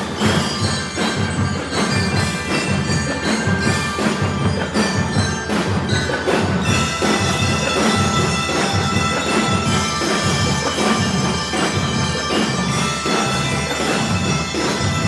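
Drum and lyre corps playing a Christmas tune: bell lyres ringing out the melody over a steady beat of marching drums.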